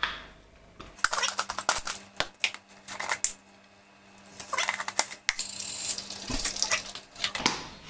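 Plastic measuring scoop clicking and scraping inside plastic supplement tubs and tapping on the rim as powder is scooped out, in quick clattery runs, followed near the end by a soft hiss as powder is tipped into a cup.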